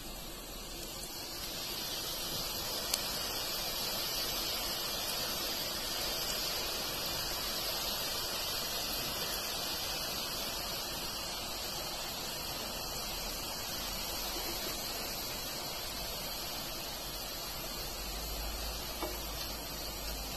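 Hot oil sizzling steadily as thin strands of gram-flour (besan) sev dough deep-fry in a pan, growing a little louder about two seconds in. A light tick about three seconds in.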